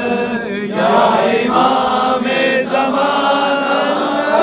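A group of men chanting a devotional dua together in melodic, drawn-out phrases.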